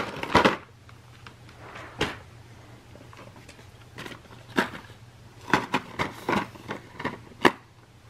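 Blister-packed toy train engines sliding out of a paper mailer bag with a brief rustle, then a few light plastic clicks and taps as the packs are picked up and stood on the carpet. A low steady hum runs underneath.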